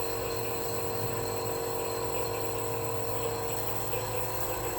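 Compressor nebulizer running with a steady motor hum and buzz while misting cough medicine.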